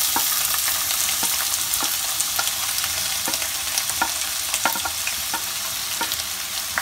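Chopped onions sizzling steadily as they are tipped into hot vegetable oil in a nonstick kadai, with sharp clicks about every half second.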